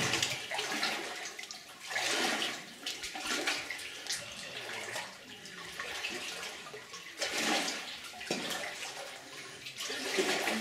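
Feet wading slowly through shallow water on the silty floor of a flooded mine tunnel, with a splash and slosh every couple of seconds.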